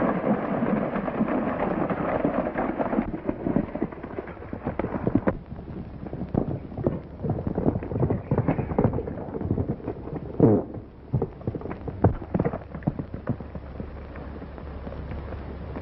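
Hoofbeats of galloping horses on dirt. For the first few seconds a group of horses makes a dense rumble; after that the quicker, separate beats of a single horse take over.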